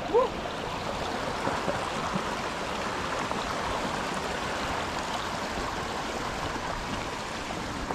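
Small rocky mountain creek flowing steadily over stones.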